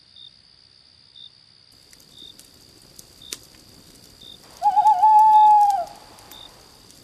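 Night-time ambience sound effect: crickets chirping steadily, with one long owl hoot about five seconds in that wavers at its start, holds, then falls away.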